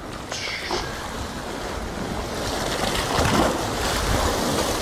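Sea waves surging and washing against shoreline rocks, swelling louder about two seconds in, with wind rumbling on the microphone.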